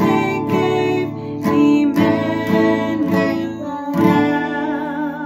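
Acoustic guitar strummed in a steady rhythm while a woman and a young girl sing a song together, ending on a long, wavering held note.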